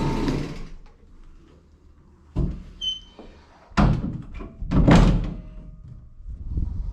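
A running machine winds down and stops within the first second. It is followed by a few separate knocks and thuds, like equipment or a door being handled, the loudest near the middle.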